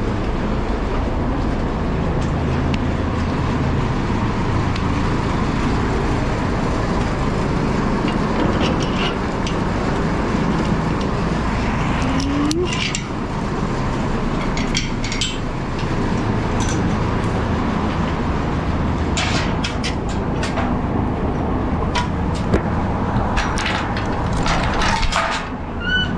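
Steady low hum of running machinery, with scattered metallic clinks and clicks.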